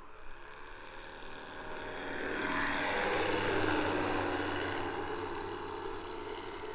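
Radio-controlled model airplane's small piston engine and propeller flying a low pass overhead. It grows louder as it approaches, is loudest about three to four seconds in, then fades as it passes.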